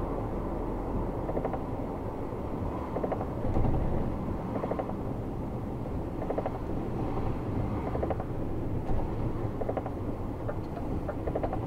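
Lorry cab interior: steady engine and road noise while driving on a wet road. A short swishing chatter from the windscreen wipers repeats about every second and a half.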